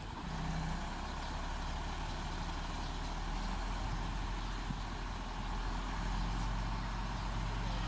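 Heavy diesel vehicle engine running steadily with a low rumble.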